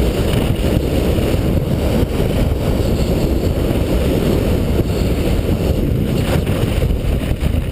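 Wind buffeting the microphone of a skier's action camera at speed, a loud steady low rumble, mixed with the skis scraping over the snow.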